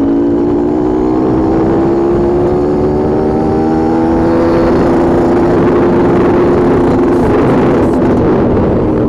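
Honda dirt bike engine running at a steady, moderate speed while riding, its pitch creeping up slightly and then holding. Over the second half a rougher rushing noise grows over it, with a few knocks near the end.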